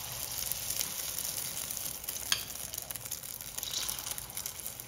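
Masala omelette frying in hot oil in a ladle (karandi omelette), sizzling steadily, with a single sharp click about two seconds in.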